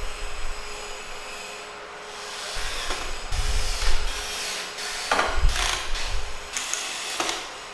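Wood and hand tools being worked and handled on a bench: irregular scraping and rubbing, with sharp knocks about three, five and seven seconds in.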